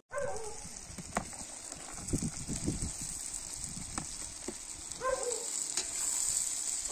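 Chopped carrots and onion sizzling as they fry in hot oil in a cast-iron kazan over a fire, a steady hiss with scattered clicks. A few short falling chirps sound over it, near the start and about five seconds in.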